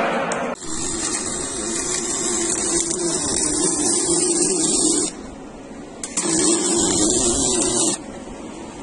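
A power tool running in two bursts, the first about four and a half seconds long and the second about two seconds, each a steady high hiss over a lower hum that stops abruptly.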